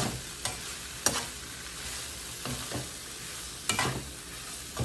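Metal spatula stirring and scraping tempe sambal around a wok, with several sharp scrapes against the pan over the steady sizzle of the frying oil.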